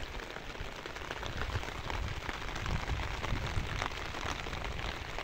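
Heavy rain falling steadily on a wet road and roadside vegetation: an even hiss dotted with the ticks of individual drops.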